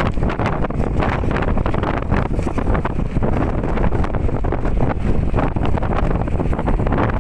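Wind buffeting the microphone of a camera carried along a road in a moving vehicle: a loud, steady, fluttering rumble with no speech.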